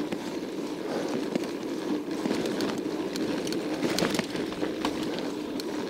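A 1991 Scott Montana mountain bike being ridden: steady rolling noise of tyres and drivetrain, with scattered small clicks and rattles.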